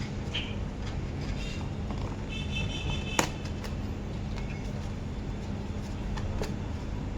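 Steady low rumble of street traffic, with a brief high whistle about two and a half seconds in and a single sharp click just after.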